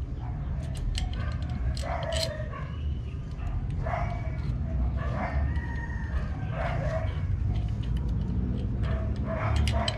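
A rooster crowing, a long call held in the middle of the stretch. A few sharp metallic clicks come from a wrench working the bolt of a motorcycle side stand, around two seconds in and again near the end.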